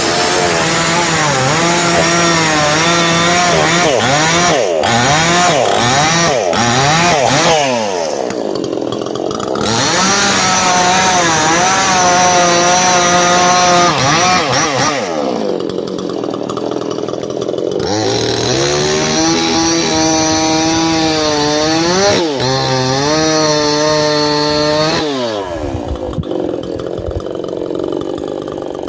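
Yasuka two-stroke chainsaw cutting mahogany wood, running at high revs with its pitch dropping and rising again several times as the throttle eases and opens. The engine settles to lower revs near the end.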